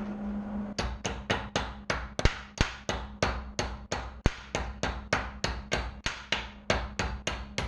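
Hammer striking in a rapid, even rhythm, about five blows a second, starting just under a second in.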